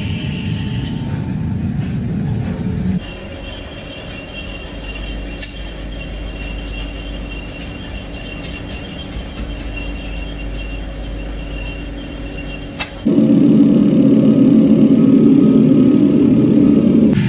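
Factory machinery running steadily. The noise changes sharply about three seconds in to a quieter hum with a couple of sharp clicks, then turns much louder near the end.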